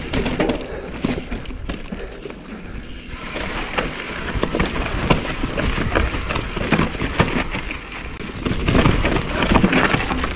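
Mountain bike riding down a steep, loose rocky trail: tyres crunching over gravel and stones, with a fast, irregular clatter of knocks and rattles from the bike. It eases off for a moment about two seconds in, then grows busier again near the end.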